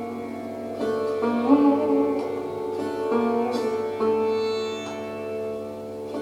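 Sitar playing a slow melodic line: a handful of plucked notes, several of them bent and slid between pitches, ringing on over a steady hum of sustained strings.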